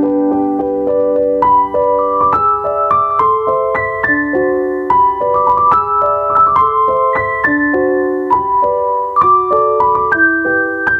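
Background music on piano or electric piano: a gentle melody over sustained chords, a new note or chord about every half second.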